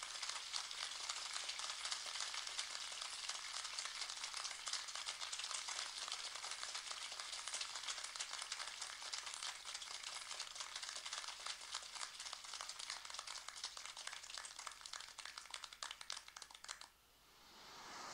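A steady, dense crackling hiss of many fine clicks, which cuts off suddenly near the end and gives way to a rising hiss.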